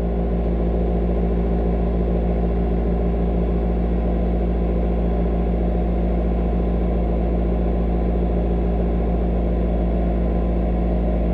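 Toyota Echo's four-cylinder engine running at a steady fast idle of about 1800 RPM on a cold start, just after the throttle body and idle air control valve were cleaned and before the idle has been relearned.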